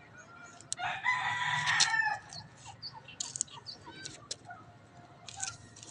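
A rooster crowing once, about a second in: one long call lasting just over a second.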